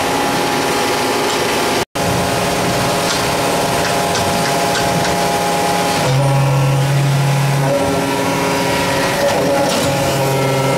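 Alpha 503D-17L 500-ton powder compacting press running while pressing powder metal parts: a loud, steady machine hum with many held tones and a few light clicks. The sound cuts out for an instant about two seconds in, and a deeper hum swells for a second or two just past the middle.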